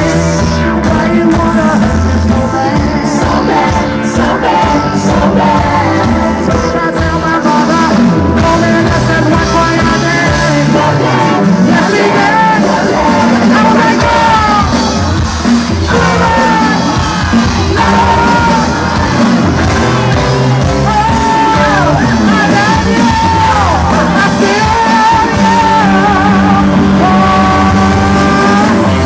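A live band with electric guitars, keyboards and drums plays loudly behind a male lead singer and female backing singers. The sung melody comes to the fore about twelve seconds in.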